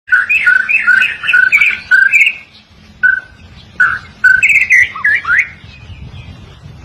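White-rumped shama singing loudly. A quick run of clear whistled notes, then a pause, a few single notes, and a second fast phrase that ends in rising whistles.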